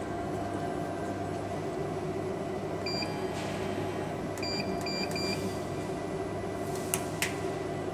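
Steady hum of a running CO2 laser cutting machine. Short electronic beeps sound about three seconds in, then three more in quick succession about a second and a half later, and two sharp clicks come near the end.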